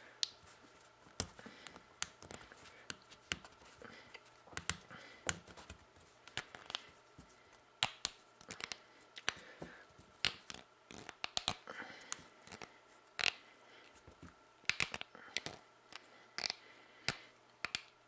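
Small 3D-printed plastic parts of a hand pump drill being handled and twisted together: faint, irregular clicks and scrapes as the plastic nut is screwed tight on the shaft.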